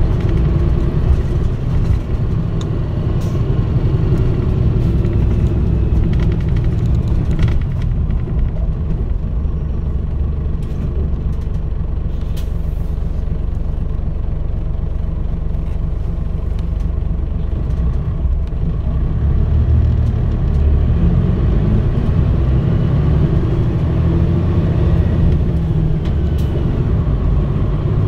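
Running sound of a Mitsubishi Fuso Aero Star (KL-MP35JM) diesel city bus: a steady low engine and road rumble. About twenty seconds in, the engine note rises as the bus pulls away again.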